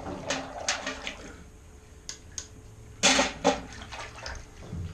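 Scattered metallic clinks and knocks of blacksmith's tongs and cut-off steel bar being handled at the anvil, with a louder clatter a little past three seconds in.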